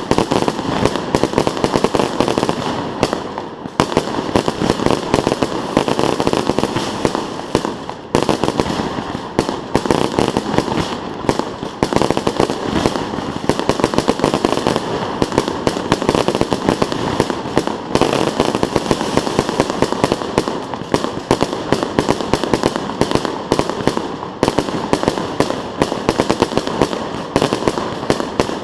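Fireworks display going off: a dense, continuous barrage of bangs and crackling reports with hardly a gap, a few brief dips in intensity.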